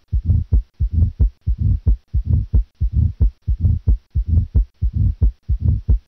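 Heart sounds auscultated at the cardiac apex, beating in a steady rhythm, with a uniform, low-pitched diastolic rumble between the beats: the murmur of mitral stenosis.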